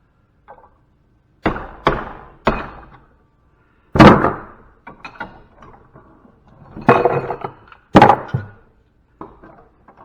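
Sledgehammer blows on metal, about six heavy strikes at uneven intervals with lighter knocks between them, the loudest about four seconds in, driving an electric motor out of its crimped housing.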